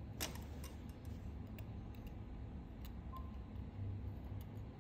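Light, scattered clicks of steel tweezers and a small watch movement bridge touching a steel bench block, the sharpest about a quarter second in, over a low steady hum.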